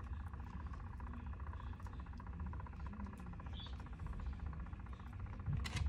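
Small electric cup-turner motor humming steadily as it turns the tumbler, with faint scattered ticks. A brief louder rustle comes near the end.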